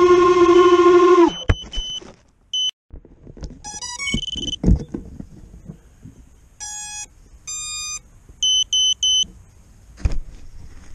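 Brushless motors of a small FPV racing quad (HGLRC Flame 1106) whine at a steady pitch, then cut off a little over a second in. A few clicks follow, then a series of short electronic beeps and stepped tone runs from the quad's ESCs and buzzer as it sits on the ground.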